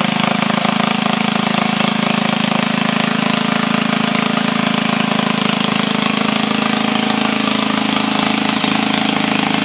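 Small rebuilt single-cylinder lawnmower engine running steadily, still burning off a lot of oil left in its muffler.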